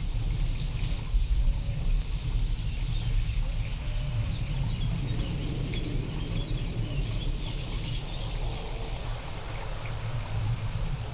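Steady rain over a continuous low thunder rumble, from a storm recording sound-designed to seem alien. Faint high chirps come and go in the middle.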